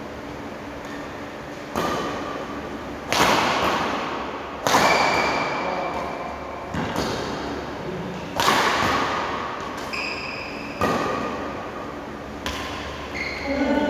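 Badminton rackets striking a shuttlecock back and forth in a rally: about seven sharp hits, one every second or two, each ringing out in the hall's echo.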